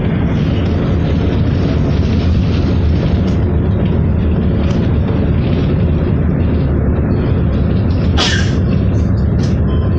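City bus running, its engine and road rumble heard from inside the passenger cabin as a steady low noise. About eight seconds in there is one short, sharp hissing burst, followed by a few fainter ones.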